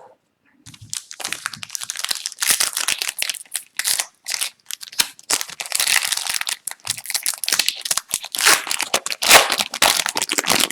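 Foil trading-card pack wrapper being torn open and crinkled, a dense run of crackling and rustling that starts about a second in.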